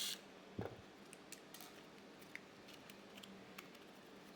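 Faint, scattered clicks and taps of a plastic pool-cleaner body and gearbox being handled and worked on, with a soft knock about half a second in.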